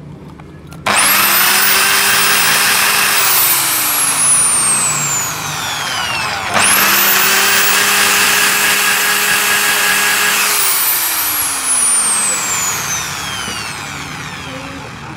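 Electric hand grinder with a burr bit switched on twice, each time spinning up fast to a high whine, running a few seconds, then coasting down with a falling whine.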